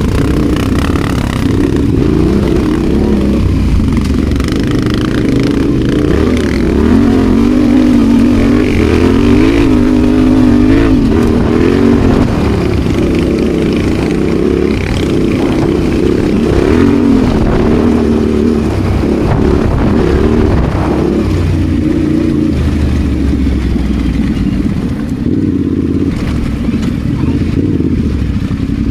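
Adventure motorcycle engine running under way off-road, its pitch rising and falling with the throttle, with scattered knocks and clatter from the rough ground.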